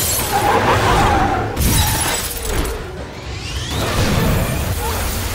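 Movie sound effects of a car window shattering, glass crashing and spraying in two loud bursts, the second about a second and a half in, over a dense layer of crashing debris.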